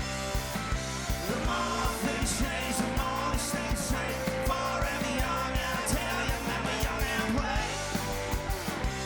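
Rock band playing live: an instrumental stretch with a steady drum beat under sustained, ringing instrument notes.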